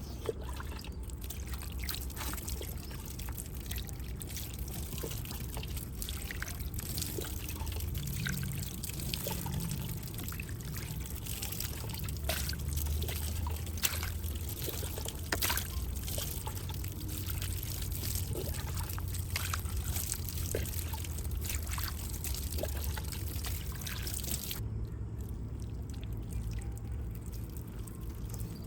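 Water pouring and trickling over a small die-cast model motorcycle as it is rinsed, with light clicks and taps from handling it. The running water stops about four seconds before the end.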